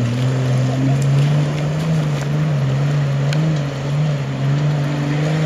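Off-road vehicle's engine running steadily under load as it drives through a river, its pitch wavering slightly, with water splashing around it.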